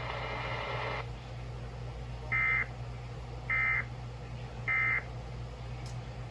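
NOAA Weather Radio broadcasting the Emergency Alert System end-of-message code: three short, raspy two-tone data bursts about a second apart, marking the end of the tornado warning. They follow about a second of radio hiss that cuts off, over a steady electrical hum from the receiver.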